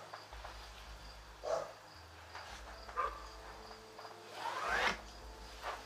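Pen drawing a line along a yardstick on a vinyl sheet: a few short strokes, then a longer, louder stroke rising in pitch about four and a half seconds in.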